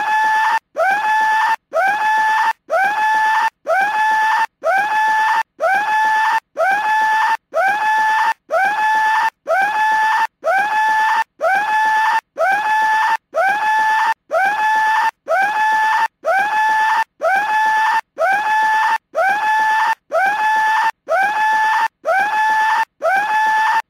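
Skull-shaped cartoon telephone ringing with a shrill scream: each scream rises and then holds its pitch for most of a second, repeated about once a second with a brief break between.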